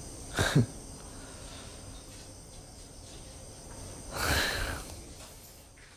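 A young man's short grunt, falling in pitch, about half a second in, then a soft breathy chuckle a little after four seconds, over a faint steady hiss.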